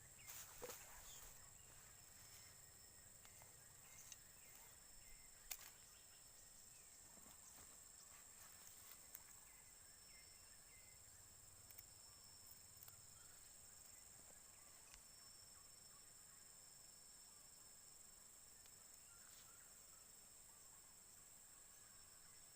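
Faint, steady high-pitched drone of insects, with a few soft clicks in the first six seconds.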